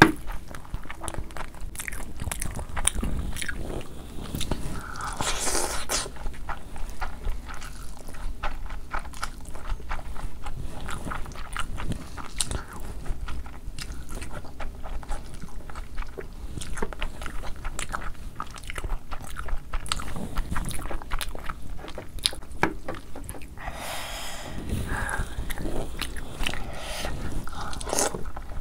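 Close-miked ASMR eating: a person biting and chewing food, with a steady stream of quick, sharp mouth clicks.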